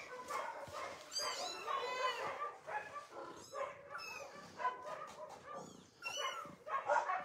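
Several short, high-pitched animal cries and yelps, bunched together about a second in and followed by scattered quieter ones.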